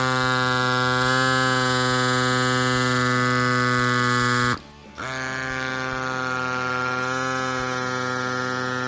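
A CYCPLUS AS2 Pro Max mini electric pump runs with a steady electric buzz as it pumps an air suspension fork up to a preset 75 PSI. It cuts out for about half a second around the middle, then starts again, slightly quieter.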